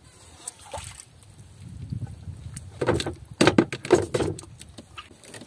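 Handling noise in a small wooden fishing boat during squid jigging: a low rumble, then a quick run of sharp knocks and clatters about three to four seconds in.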